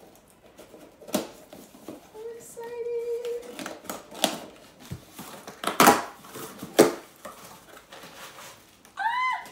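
Scissors cutting through packing tape on a cardboard shipping box: a series of sharp snips and rips, the loudest a little after the middle, then the box flaps being pulled open. A brief hum about two seconds in and a short vocal sound near the end.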